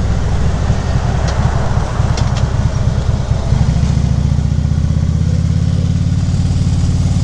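Harley-Davidson V-twin engine running on a 2014 Ultra Classic Limited while riding, with wind rushing over the microphone. A little past the middle the wind noise eases and the engine settles into a steady, even note.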